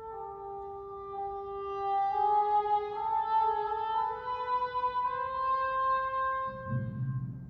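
A solo woodwind plays a slow, sustained melody that climbs step by step. Near the end, the timpani come in with a low rolling rumble.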